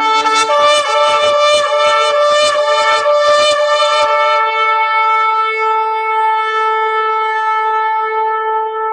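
Shofar (ram's-horn trumpet) blown in one long held note. It opens with a brief lower tone that jumps up, pulses roughly for about the first four seconds, then holds steady.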